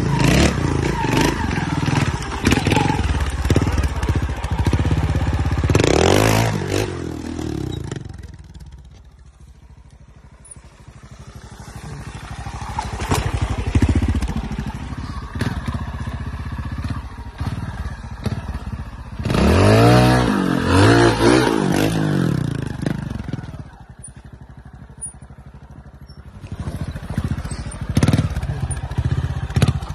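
Trials motorcycle engine revved hard in short bursts, its pitch rising and falling sharply with each blip of the throttle, with quieter spells of low running between efforts.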